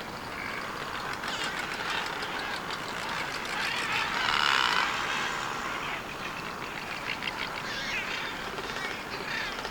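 Many birds calling at once in a dense, overlapping chorus of chirps and calls, swelling for a moment about four to five seconds in.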